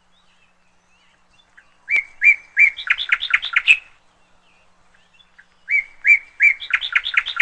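A bird singing two matching phrases a few seconds apart, each a few evenly spaced clear notes that speed up into a quicker run of higher notes.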